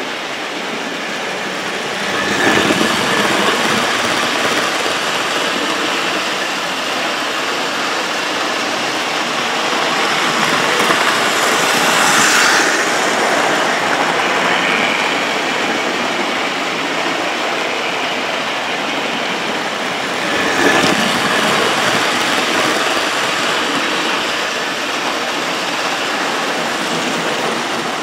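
OO gauge model Britannia locomotives and their coaches running on the layout's track: a steady whirring and rumbling of motors and wheels on rail. It swells louder as trains pass close, about two seconds in, around the middle and at about twenty seconds.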